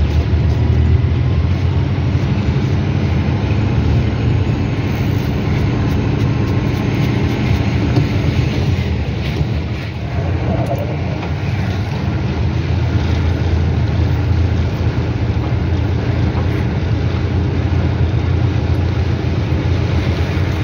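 Steady low rumble inside a car cabin while driving in rain: engine and tyres on a wet road, with a short dip about halfway through.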